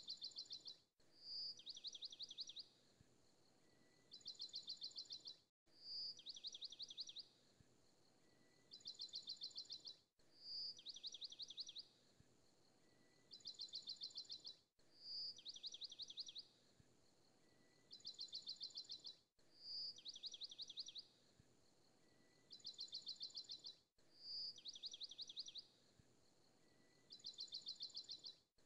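Faint looped recording of rapid, high bird-like chirping trills, the same few-second pattern repeating about every four and a half seconds with a brief dropout at each repeat.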